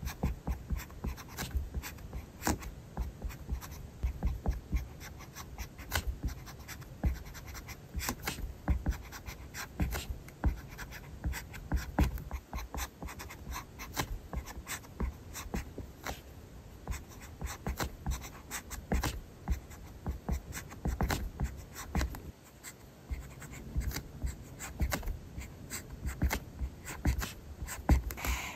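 Pen writing on paper: a quick, irregular run of nib scratches and taps, with soft low thuds underneath.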